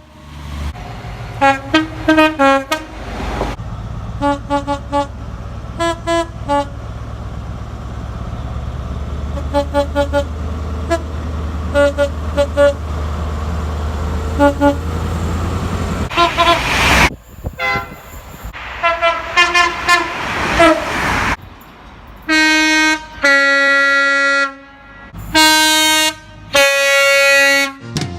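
British train horns sounding again and again: many short toots over a low engine rumble, a brief rush of noise in the middle, then several longer, louder blasts near the end.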